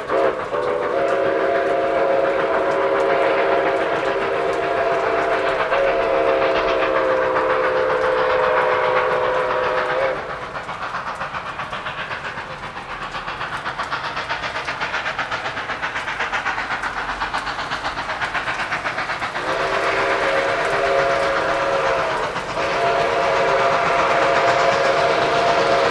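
Nickel Plate Road 765's chime steam whistle blowing a long blast, broken briefly about six seconds in and stopping at about ten seconds. The train's running noise carries on alone for about nine seconds, then the whistle sounds again from about twenty seconds, with a short break, and holds to the end.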